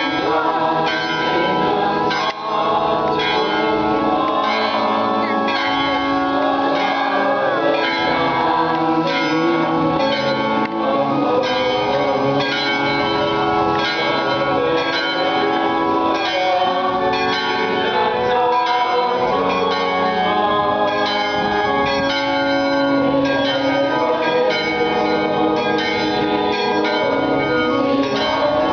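Church bells pealing continuously, many bells struck over and over so that their ringing tones overlap.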